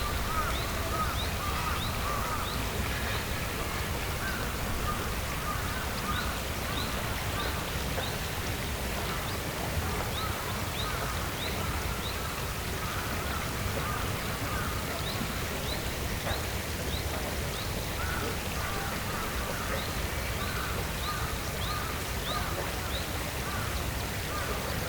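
Birds calling over a steady low background hum of outdoor noise. Short calls repeat continually at a middle pitch, mixed with thin, quick, high notes that fall in pitch.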